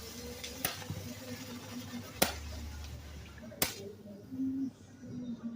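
Three sharp firework bangs, about a second and a half apart, over a low murmur of voices.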